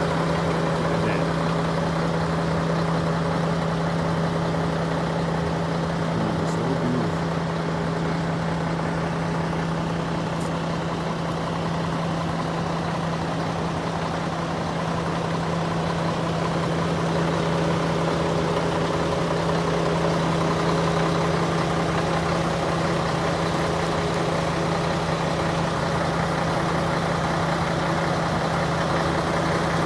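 Mack truck's diesel engine idling steadily.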